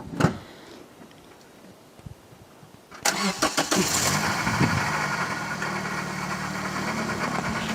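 Car engine cold-starting in sub-zero cold: it catches abruptly about three seconds in and settles into a steady idle.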